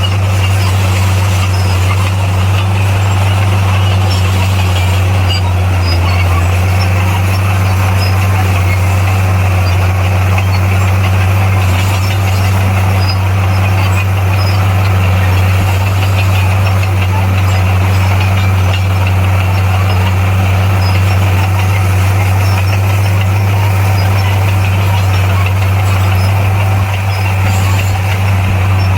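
Bulldozer's diesel engine running steadily, a deep, even drone that holds the same pitch and loudness throughout.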